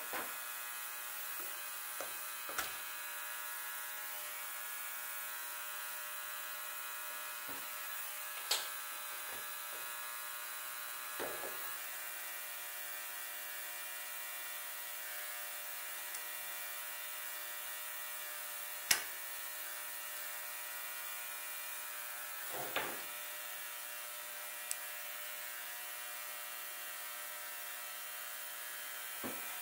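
Scattered sharp clicks and taps of small metal parts as a Rochester Model B carburetor is taken apart by hand. The loudest click comes a little past the middle. A steady buzzing hum runs underneath throughout.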